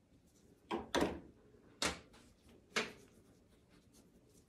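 Four sharp knocks over about two seconds, a quick pair followed by two single ones, as a plastic cookie-cutter stamp and a plastic powder tub are handled on a stainless steel worktable while the stamp is dusted with powder.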